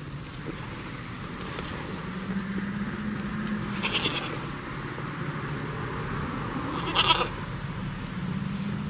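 Goat bleating: two long, low, steady calls, with a short rustling knock at about four seconds and a louder one at about seven seconds as a goat jostles the camera.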